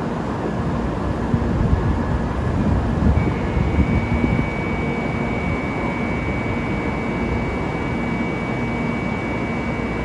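Kyushu Shinkansen high-speed train running, a steady loud rushing rumble with a thin high whine that comes in about three seconds in.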